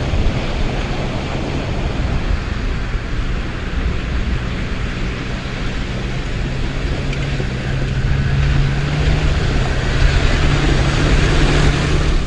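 Ford Super Duty pickup on rubber track conversion units driving over grass and mud, its engine running under load with a steady low hum over heavy rushing wind-like noise. The engine note gets louder and rises slightly about eight seconds in, and the sound cuts off suddenly at the end.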